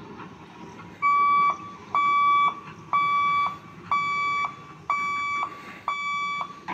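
Level-crossing warning buzzer sounding a steady high-pitched beep about once a second, each beep about half a second long, starting about a second in and growing a little fainter. It warns that the boom barriers are coming down to close the road.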